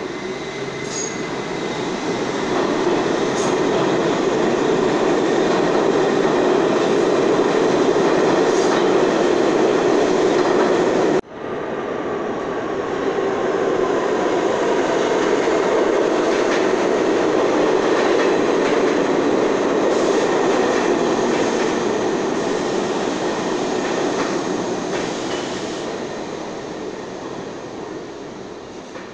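New York City subway G trains running through an underground station: the rumble and wheel-on-rail noise of a train on the far track, then, after a sudden break, a train coming in on the near track with faint wheel squeal, its noise fading as it slows into the platform.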